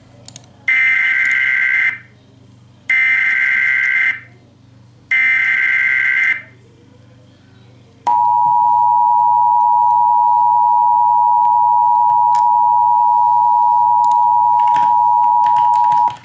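Emergency Alert System alert tones: three harsh squawking bursts of SAME header data, about a second each and a second apart, then the steady two-tone attention signal for about eight seconds. The alert announces a severe thunderstorm warning.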